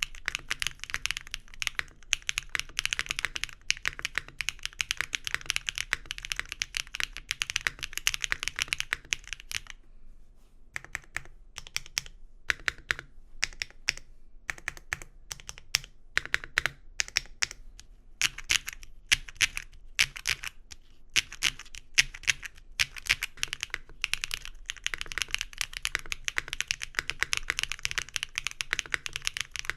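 Typing on a mechanical keyboard whose O-ring mount is fitted with Nuxoskb PCBsnap posts over the mounting pillars. Quick, continuous keystrokes give way about ten seconds in to slower, separate strokes with short gaps, and fast typing resumes near the end.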